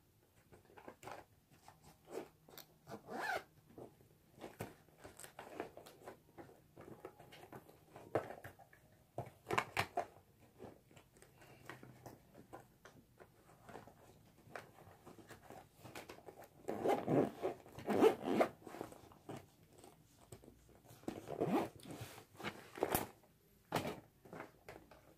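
Makeup being packed away: small clicks and rustles of compacts, brushes and cases being handled, with a zip being pulled in short strokes. The loudest handling comes a little past the middle and again near the end.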